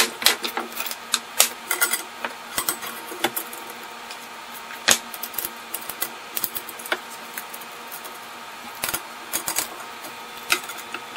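Irregular metal clicks and clinks of a fence tension band, bracket and bolt being handled and fitted onto a galvanized steel fence post, its nut being turned partway tight.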